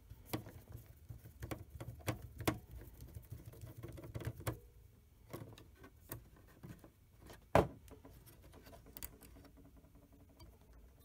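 Phillips screwdriver turning small screws out of a metal retaining plate inside a printer: a run of small, irregular clicks and scrapes of the bit in the screw heads and metal handling, dense for the first four seconds or so, then sparser, with one sharper click about three quarters of the way through.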